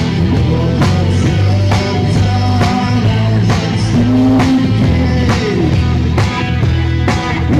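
Rock band playing electric guitar, bass and drum kit, with drum strikes on a steady beat just under a second apart.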